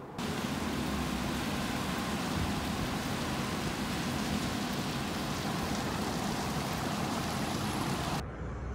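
Steady rain falling, an even hiss that cuts off suddenly near the end.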